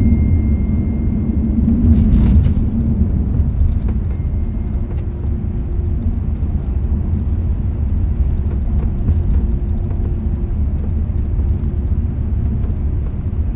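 Steady low rumble of a moving road vehicle.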